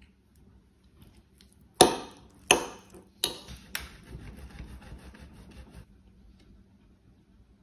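Four sharp knocks of kitchen utensils on kitchenware, then cheese rubbed against a stainless steel box grater with a faint rasping.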